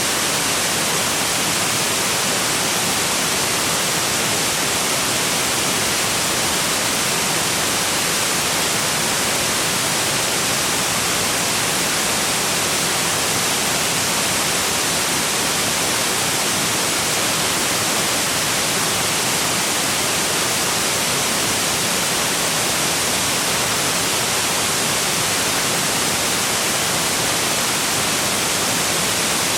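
Waterfall rushing: a steady, even hiss that does not change.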